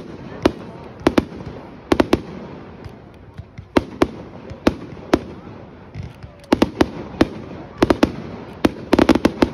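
Aerial fireworks bursting in a string of sharp bangs at irregular intervals, with a short lull in the middle and a rapid cluster of bangs near the end.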